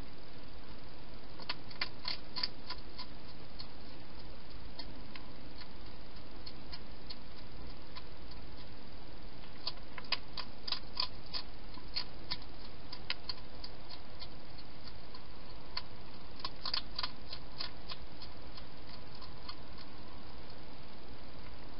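Wild hedgehog feeding at a bowl inside a plastic feeding box: bouts of sharp clicks and crunches, about a second and a half in, around the middle, and again near the end, over a steady hiss.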